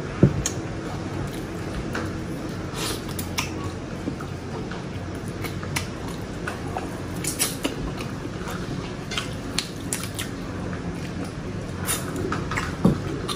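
Close-miked eating of grilled chicken inasal by hand: chewing and mouth sounds, with the meat being pulled apart, and many scattered short clicks and smacks. A sharper knock comes just after the start and another near the end.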